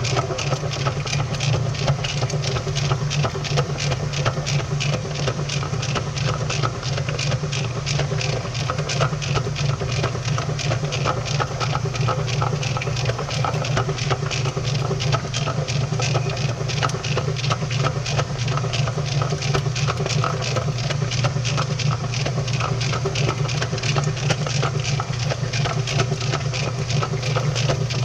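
Washing machine running, heard from inside the drum: a steady low motor hum under a wet, splashing noise, with rapid, continual clicking and knocking throughout.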